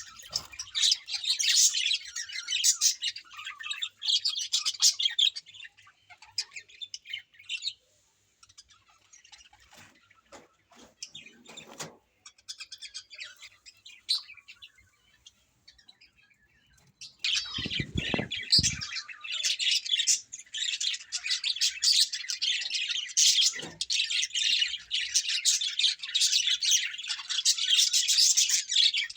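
Many small birds chirping and twittering over one another. The chatter thins out for several seconds in the middle, then picks up again strongly, with a brief low thump just as it returns.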